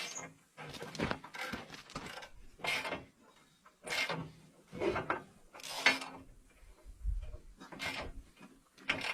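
An old car engine turned over in short tries without starting: a string of short mechanical bursts about once a second, with quiet gaps between them and a brief low rumble about seven seconds in.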